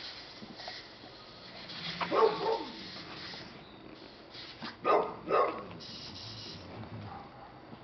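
American Staffordshire Terriers barking while playing: two short barks about two seconds in and two more about five seconds in.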